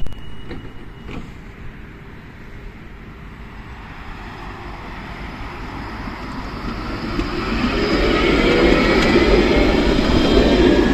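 Electric tram pulling up to and past, with a rising whine from its traction motors as it speeds up over the rumble of wheels on rail. It grows steadily louder, loudest as it goes by near the end.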